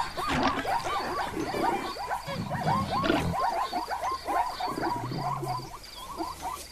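A herd of zebras giving many overlapping short yelping calls, over a regular high chirp repeating about twice a second, with low grunts now and then.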